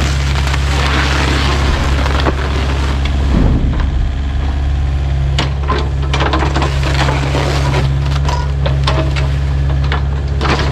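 Kubota U55-4 mini excavator's diesel engine running steadily under load, with its bucket handling demolition debris: a series of knocks, cracks and splintering wood clatter starting a few seconds in as junk is scooped and dropped into a dumpster.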